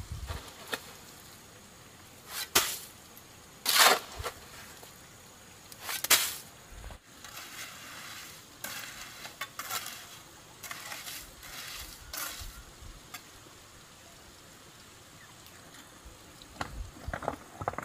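Gritty scraping of a mason's tool working cement mortar and gravel, in separate strokes: three strong ones in the first six seconds, a quicker run of shorter scrapes in the middle, and a few more near the end.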